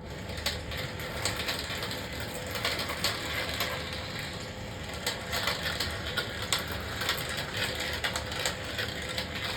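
Motorized 3D-printed marble run at work: 8 mm steel ball bearings clicking and rattling irregularly along the plastic tracks and Archimedes screw, over a faint steady whine from the small gear reduction motor.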